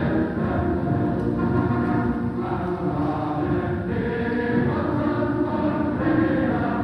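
Choral music: massed voices holding sustained chords that shift every second or so.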